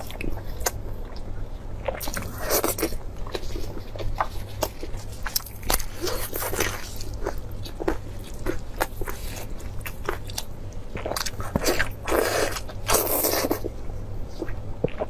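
Close-miked eating of braised mutton ribs: wet chewing and mouth smacks as many sharp clicks, with a few longer rustling bursts of tearing meat, over a steady low hum.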